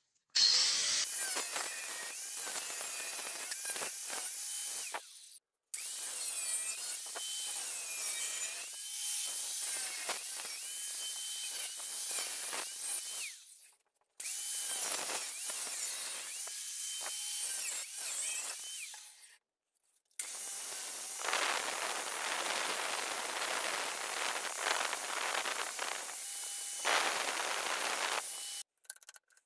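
Angle grinder cutting through a steel hand-saw blade, a harsh grinding hiss with a whine that dips and recovers as the disc bites. It runs in long stretches broken by three or four short silences.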